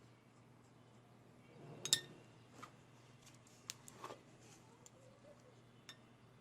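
Spoon clinking against a bowl a few times while stirring a sticky ginger, flour and honey paste; the sharpest clink comes about two seconds in.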